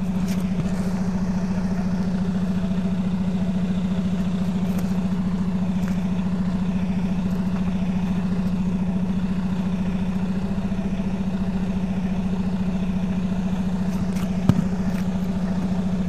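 A heavy truck's engine running steadily with an even droning hum, and a single sharp click near the end.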